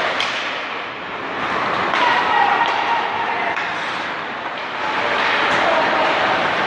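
Ice hockey rink din: a steady hubbub of spectators and players with voices calling out, and a sharp knock just after the start and another about five and a half seconds in.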